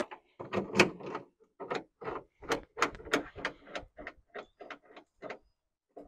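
Quick, uneven series of sharp clicks and clacks from a Honda Ridgeline's newly fitted tailgate key lock and latch linkage as it is worked with the key to test it.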